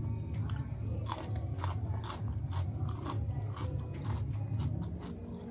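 Close-miked chewing of food with crisp crunches, about two a second.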